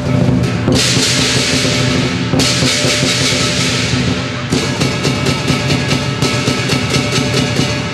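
Lion dance percussion band playing: a large Chinese drum beaten in a fast, driving rhythm with cymbals and gong. The cymbals come in loud about a second in and again from about halfway.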